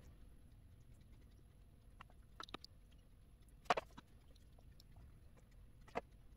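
Hands working marinated chicken pieces out of a plastic tub and onto wooden skewers: a handful of short wet squelches and light clicks, the loudest a little under four seconds in.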